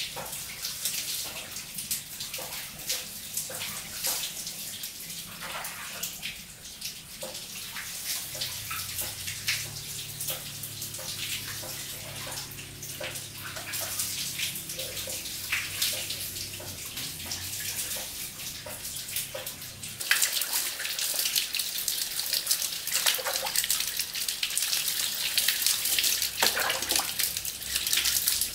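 Water splashing and trickling, full of small drips and splashes. About twenty seconds in it changes suddenly to a louder, denser rush of water.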